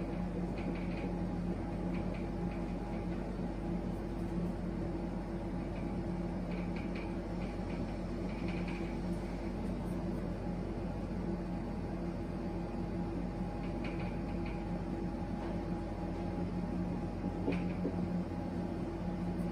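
Marker pen writing on a whiteboard: short, faint squeaks and strokes every few seconds over a steady low hum.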